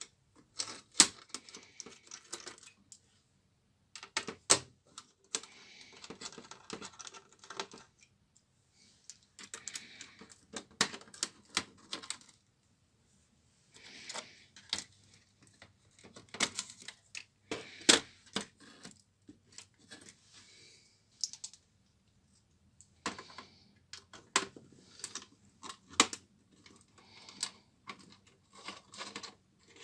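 Small clicks, taps and clatter of hands working inside an opened Dell Studio 1535 laptop, handling a screwdriver and small parts on the chassis and motherboard. The sounds come in bursts of a few seconds, broken by short silences.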